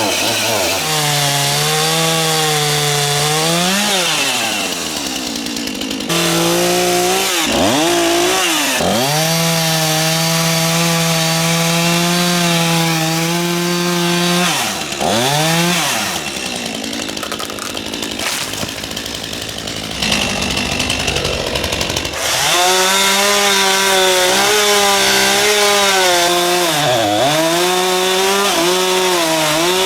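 Stihl two-stroke chainsaw running at high revs as it cuts maple branches, the engine note dropping sharply and recovering about four times, with a rougher, less even stretch in the middle.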